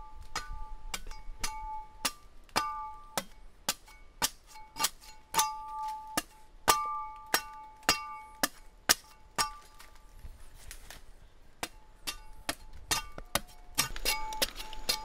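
Machete chopping into a tree trunk to cut away bark, blow after blow at roughly two a second, each a sharp chop with a short metallic ring from the blade. The blows pause briefly about two-thirds of the way through.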